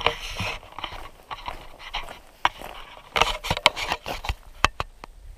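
Footsteps on a trail, an irregular run of crunching steps and sharp scuffs and clicks, with a cluster of sharper clicks near the end.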